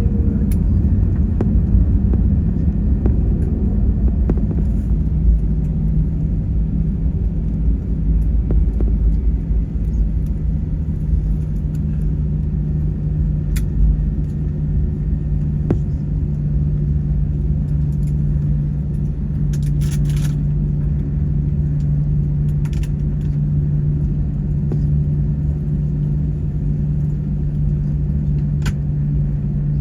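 Steady low rumble inside a jet airliner's cabin as it rolls along the ground after landing: engine noise and wheels on the pavement. A steady hum settles in about five seconds in, and a few faint clicks sound through it.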